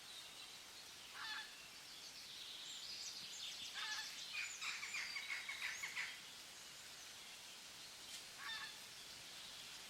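Birds calling: a short call about a second in, a run of quick chattering notes in the middle, and another short call near the end, over a steady outdoor hiss.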